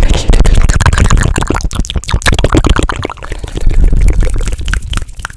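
Fast, dense ASMR trigger sounds right on the microphone: rapid wet mouth clicks and smacks mixed with hand sounds, with a low rumble of hands rubbing close to the mic.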